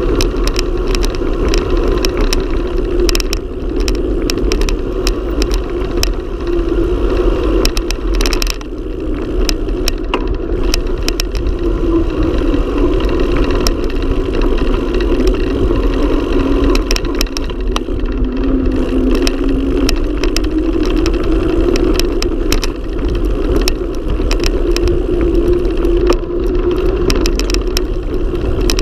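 Mountain bike descending fast on asphalt: steady rush of wind on the camera microphone and tyre roar, with many short clicks and rattles as the bike and camera shake over bumps and potholes in the road.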